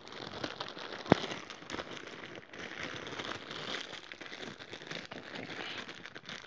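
Clear plastic bag crinkling and rustling as it is handled and pulled open by hand. There is one sharp click about a second in.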